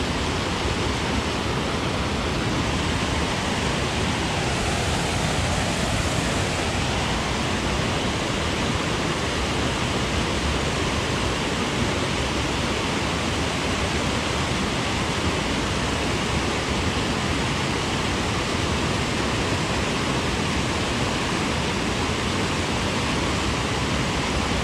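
Steady, even rush of a small waterfall pouring over a concrete weir.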